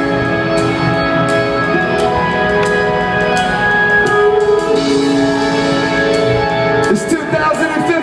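Live electronic music played by a band in a large hall: held chords and a melodic line over evenly spaced beat hits, with a vocal line.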